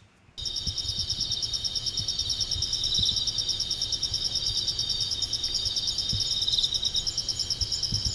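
A chorus of insects trilling steadily in several overlapping high pitches, each a fast even pulse, starting abruptly about half a second in. An irregular low rumble runs underneath.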